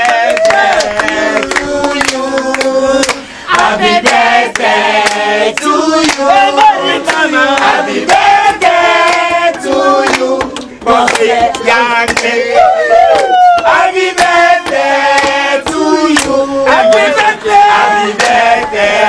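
A group of voices singing together in a chant-like song, with hand claps keeping a steady beat.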